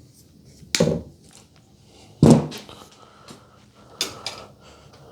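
Three sharp knocks and clatters about a second and a half apart, the middle one loudest, with lighter clicks between: small tools and wiring parts being handled and set down during electrical work.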